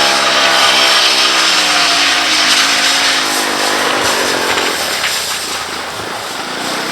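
Three-wheeler ATV engine running, its pitch slowly falling as it eases off, then fading out about four seconds in.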